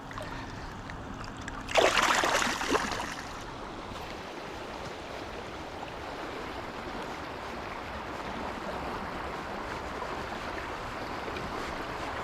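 Steady rush of flowing river water, with a louder burst of noise lasting about a second, about two seconds in.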